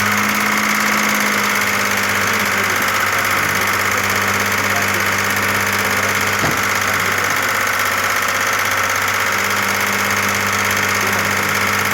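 Audi A6 engine idling steadily, with the light tapping typical of knocking hydraulic valve lifters. A single sharp click about six and a half seconds in.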